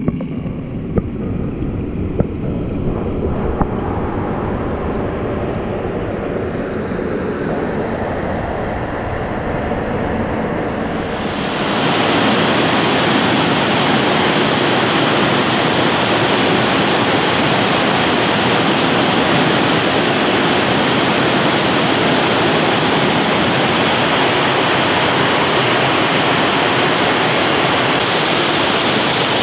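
A steady rushing noise with no rhythm or tone. About eleven seconds in it suddenly becomes louder and hissier, then holds steady.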